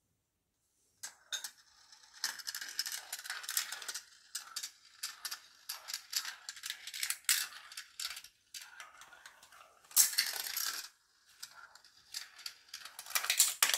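Marbles rolling and clattering through a GraviTrax plastic marble run, with quick clicks and rattles as they drop through the track pieces and run along the rails. It starts about a second in and comes in uneven bursts, the loudest about ten seconds in and just before the end.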